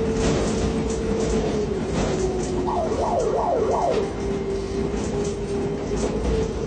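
Ship-to-shore container crane running with a tandem-lift spreader: a steady machine whine over a rumble, the whine dropping slightly in pitch about two seconds in. A burst of rapidly warbling tones lasts about a second in the middle.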